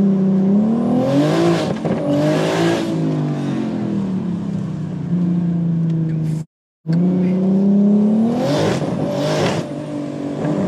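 BMW M140i's tuned turbocharged 3.0-litre B58 straight-six accelerating hard, heard inside the cabin. The engine note rises and drops back several times through gear changes, with bursts of hiss around the shifts. The sound cuts out for a moment about six seconds in, then the revs climb again.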